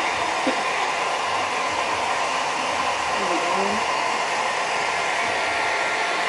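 Hair dryer blowing steadily, drying a dog's fur.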